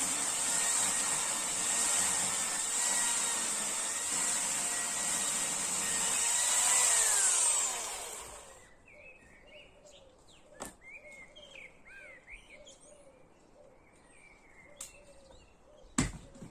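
Chainsaw engine running at a steady high speed, then switched off about seven seconds in, its pitch falling as it winds down. Birds call afterwards, with a few clicks and a sharp knock near the end.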